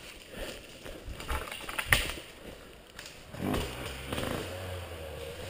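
Footsteps and boots shuffling over dry leaves and twigs on a forest slope, with scattered crackles and one sharper snap about two seconds in. A faint steady low hum comes in past the middle.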